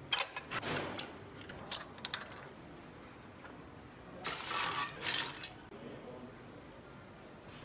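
Assembly-line handling noises: a few light clicks and knocks from work on the engine, then two short hissing bursts between about four and five and a half seconds in.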